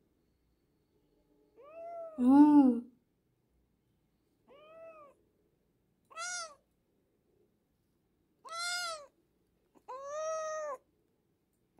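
Young orange-and-white kitten meowing repeatedly, about six calls a second or two apart, each rising and falling in pitch; the loudest comes about two seconds in.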